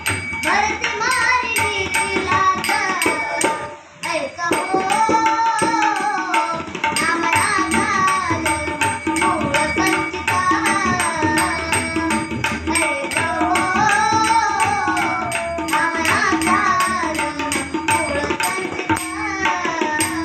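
Indian-style song: a melodic singing voice over a fast hand-drum rhythm, with a steady held note underneath. The music briefly drops away about four seconds in.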